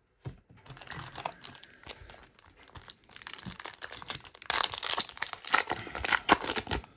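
Trading cards being handled: dry crinkling and rustling of card stock and wrapper, growing busier and louder about halfway through.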